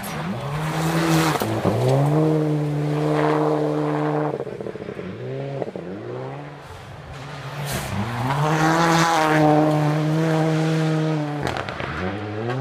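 Rally cars driven flat out on a gravel special stage, engines held high and steady with brief dips in pitch at gear changes. There are two loud passes, with a quieter stretch between them.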